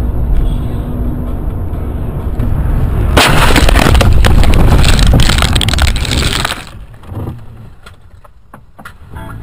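Steady road rumble inside a car on a snowy highway. About three seconds in, a sudden loud crash of the car colliding goes on for about three and a half seconds, then dies away to scattered knocks.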